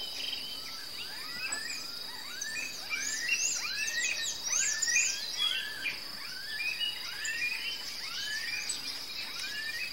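Rural outdoor ambience: a steady high-pitched insect trill with many birds calling over it, in repeated upward-sweeping whistles and short high chirps.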